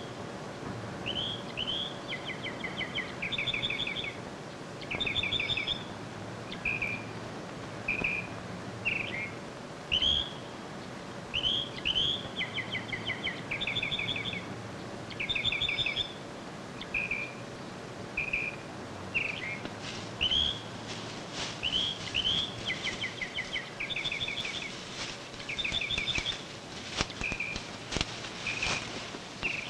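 Forest birds calling over and over: short upswept chirps and quick trilled phrases in a repeating pattern. A scatter of sharp clicks comes in over the second half.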